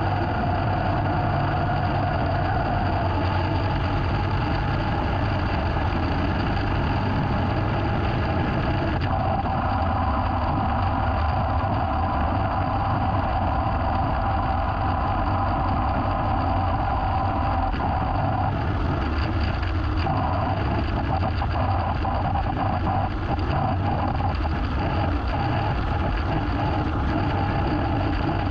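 Small petrol engine of yard equipment running steadily under load, its pitch shifting slightly now and then.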